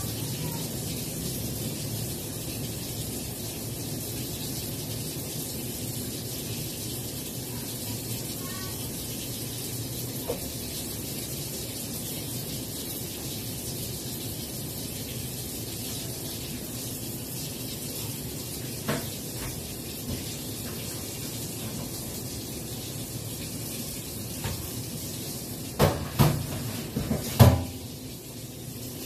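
A steady hiss, with a few sharp knocks and clatters from kitchen things being handled, loudest near the end.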